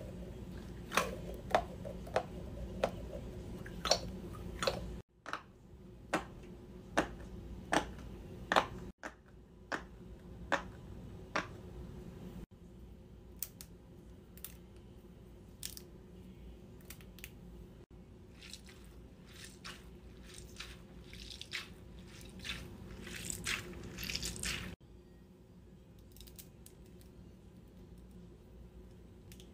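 Fidget toys handled up close: squishy balls squeezed, a chain of snap-together plastic links flexed and a plastic tangle twisted. Sharp clicks and crackles, several a second, through most of it, fainter over the last few seconds.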